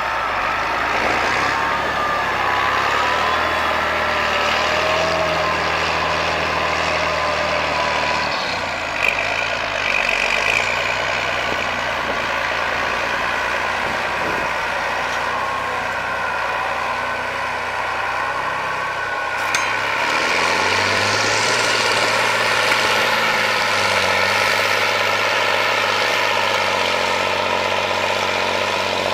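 John Deere 8310 tractor's six-cylinder diesel engine running steadily, its note dropping about eight seconds in and rising again about twenty seconds in, slightly louder after that.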